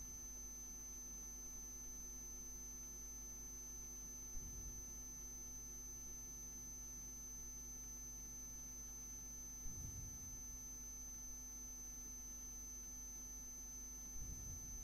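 Faint steady electrical hum with a thin high-pitched whine above it, and three soft low thumps spread through.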